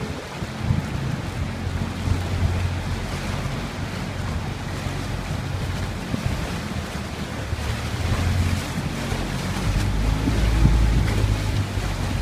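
A small tour boat's engine running with a steady low hum under sloshing sea water and wind buffeting the microphone. The engine swells louder from about eight seconds in.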